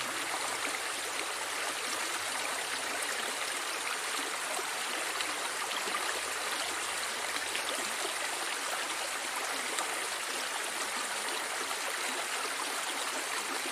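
Water running steadily along a small drainage ditch, a continuous even rushing.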